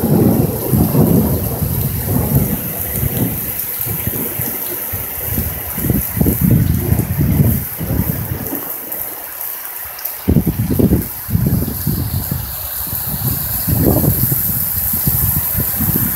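Heavy rain falling in a thunderstorm, with thunder rumbling in uneven low waves that fade and swell again.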